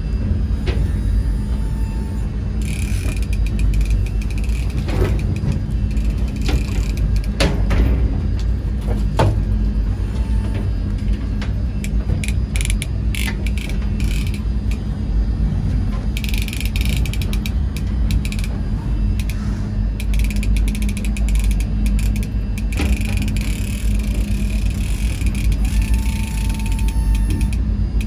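Trolling reel working against a hooked king salmon, its ratchet and gears clicking in fast runs, over the steady low drone of the boat's engine.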